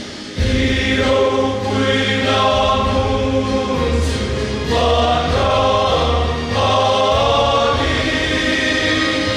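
Large mixed church choir of men and women singing a hymn in harmony under a conductor, coming in loudly about half a second in, over steady low bass notes.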